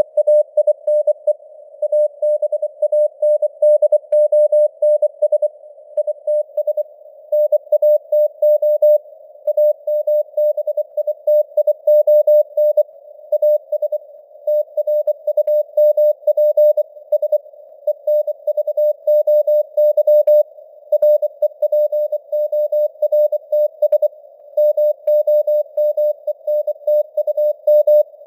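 Morse code (CW) sent at 24 words per minute: a single mid-pitched sine tone keyed on and off in quick dots and dashes, over a narrow band of simulated radio static around the tone.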